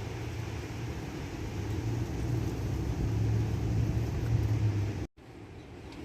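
Strong wind buffeting the microphone as a steady low rumble, growing a little louder. It cuts out abruptly for an instant about five seconds in.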